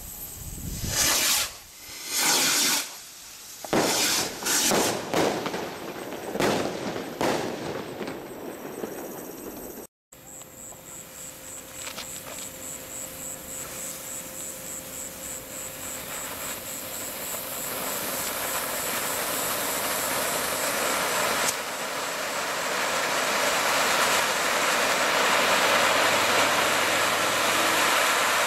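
Fireworks from a Diamond Fireworks Silver selection box: a run of loud firework bursts about once a second for the first ten seconds, then, after a break, ground fountains hissing and spraying sparks, the hiss slowly growing louder as more fountains are lit.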